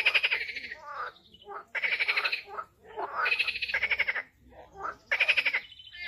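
A rapid trilling animal call repeated four times, each trill under a second long with short gaps between, playing from the bird video on the TV.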